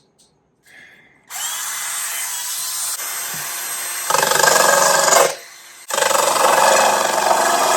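Drill spinning a mini circular saw blade on a mandrel: it spins up a little over a second in and runs free, then gets louder as the blade cuts into thin birch wood about four seconds in, eases off briefly around five and a half seconds, and cuts loudly again.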